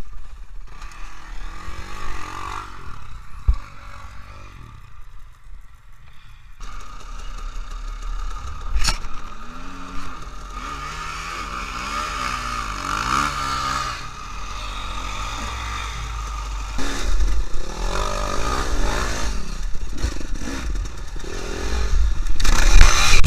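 Dirt bike engines revving up and down, the pitch rising and falling with the throttle. The sound changes abruptly between shots, with a sharp knock about nine seconds in, and it is loudest near the end.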